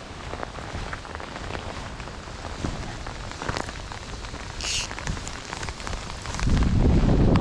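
Steady rain falling, with many close raindrop ticks. A louder low rumble comes in near the end.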